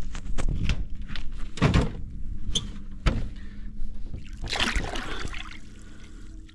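Water splashing and sloshing, with knocks and thuds against the boat, as a barramundi is held in the river by hand and released. There are two longer splashes, about two seconds in and again near five seconds.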